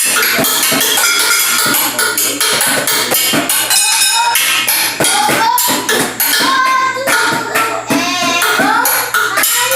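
Music with tambourine and drum beats and voices singing over it.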